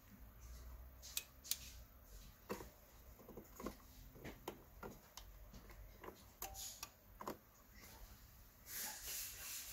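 Faint scattered clicks and taps of fingers working the keypad and front panel of a Mitsubishi FR-E800 frequency inverter, about a dozen separate clicks, with a short breathy hiss near the end.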